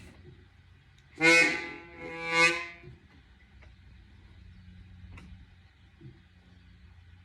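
Free reeds of a 1928 Wurlitzer accordion sounding one buzzy, reedy note twice in quick succession, about a second in, the second swelling up and fading. The accordion's bass reeds are removed, so only its reed-block notes sound, harmonica-like. A few faint clicks come before and after.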